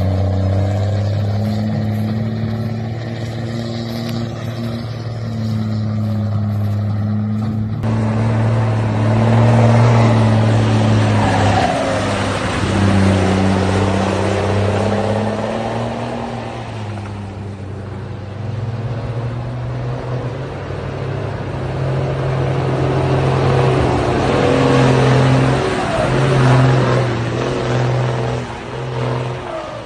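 Heavy truck's diesel engine running, its pitch rising and falling with the throttle. The sound changes abruptly about eight seconds in.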